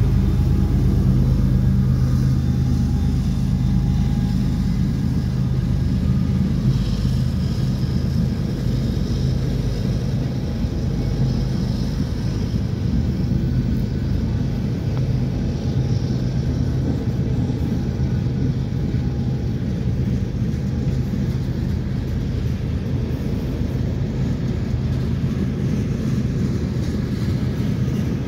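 Freight train cars (covered hoppers, gondolas and tank cars) rolling past on steel wheels, a steady noise of wheels on rail. Under it, the low drone of the mid-train diesel locomotive that has just passed, strongest in the first half and then fading.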